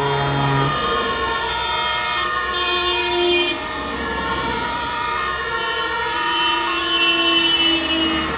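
Fire engine sirens and vehicle horns sounding together, many overlapping tones at different pitches, some wavering, over the engines of buses and trucks driving past.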